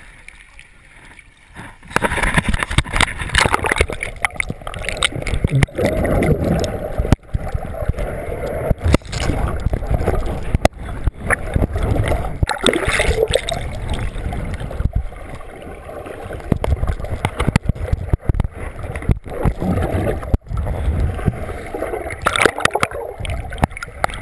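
Muffled, irregular water gurgling and sloshing against a GoPro's waterproof housing as a swimmer carries it through the water toward the surface. It is quieter for the first two seconds, then much louder.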